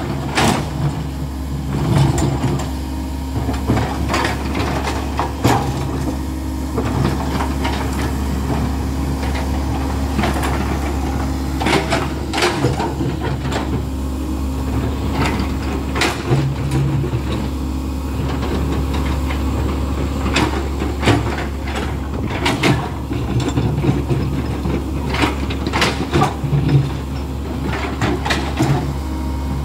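Komatsu hydraulic excavator's diesel engine running steadily while the bucket digs in a flooded, stony pit, with frequent sharp clanks and knocks of the steel bucket against rock.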